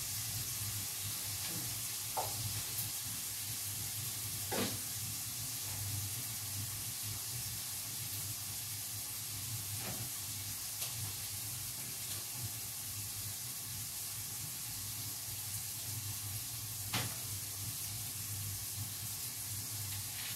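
Mushrooms frying in a pan, a steady sizzle, with a low steady hum underneath. A few sharp taps of a knife on a cutting board come through, the clearest about four and a half seconds in and near the end.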